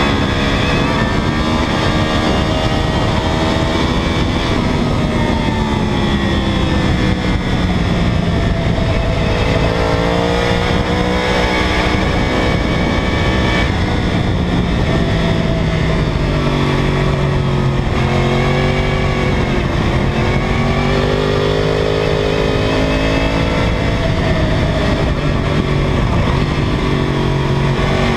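2009 Yamaha R1's crossplane inline-four engine at racing speed, its pitch climbing and dropping again and again with throttle and gear changes, over steady wind noise.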